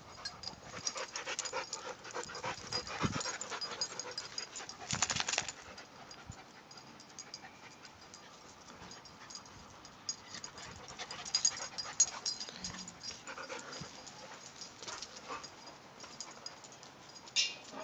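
A boxer and a Norwegian Elkhound–Keeshond puppy play-wrestling: panting and scuffling noises in bursts, busiest in the first five seconds and again from about ten to thirteen seconds in, quieter in between.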